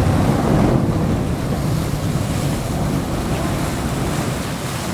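Wind and sea noise aboard a sportfishing boat: a steady rushing, heaviest in the low end, with wind buffeting the microphone, easing slightly toward the end.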